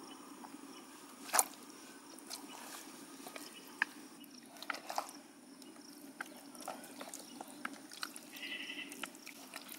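Fish pieces and a fish head being worked by hand through thick, wet masala paste in a plastic tub: faint wet squelches and scattered soft clicks, the clearest about a second and a half in.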